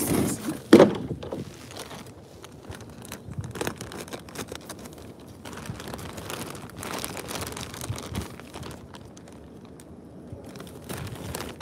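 Thin black plastic garbage bags crinkling and rustling as they are pulled and handled, with a loud sharp rustle about a second in.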